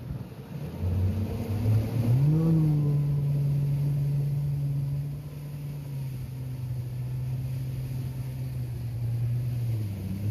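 Mercury Pro XS 250 four-stroke V8 outboard accelerating under throttle. The revs climb quickly a second or two in and then hold steady. The engine eases back a little about halfway through.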